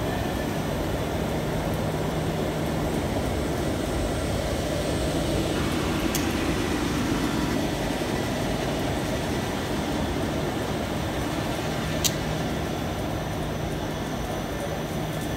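Brückner gas-heated stenter frame running: a steady mechanical din of its fans and drives with a low hum underneath, and one sharp click near the end.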